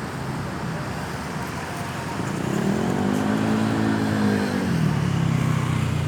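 Road traffic noise, with one vehicle's engine rising in pitch and then falling again over a couple of seconds about midway, as it speeds up and eases off while passing.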